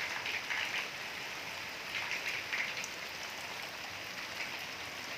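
Steady rain falling, an even hiss with a few individual drops ticking through it.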